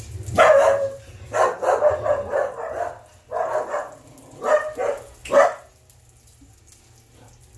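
Pet dogs barking in five loud bouts, stopping about six seconds in. They are set off by the bin men collecting outside.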